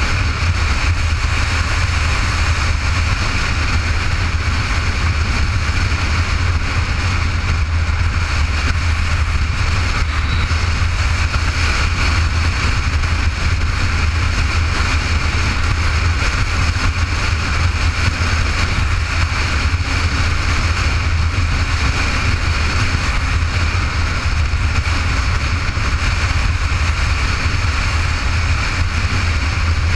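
A motorcycle cruising steadily at road speed: a constant low rumble and rush of wind on a bike-mounted camera's microphone, with no change in speed.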